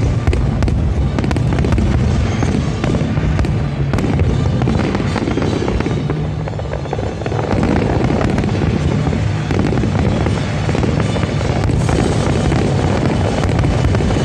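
Fireworks display: many shells bursting and crackling in quick succession, with loud show music playing alongside.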